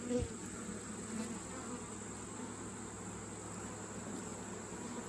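Steady buzzing of many honeybees in flight around an opened hive, a colony stirred up by the inspection.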